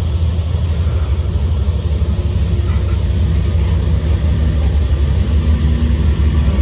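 A large engine running with a steady, loud low rumble; its pitch edges up slightly in the second half.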